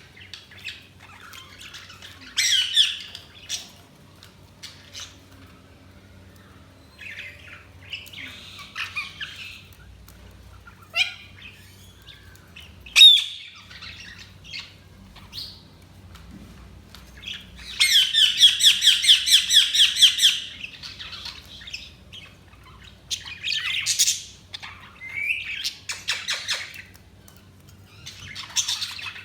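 Budgerigars chirping and squawking in separate bursts. One sharp loud call comes about 13 s in, and a fast run of rapid repeated chirps follows a little after halfway, lasting about two and a half seconds.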